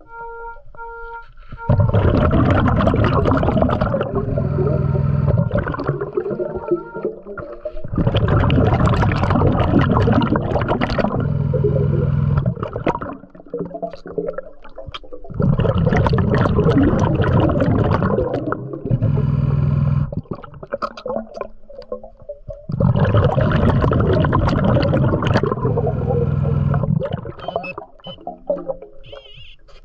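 Scuba diver breathing through a regulator underwater: four long bubbling exhales a few seconds apart, with quieter hissing inhales between them. Brief beeping tones sound just at the start.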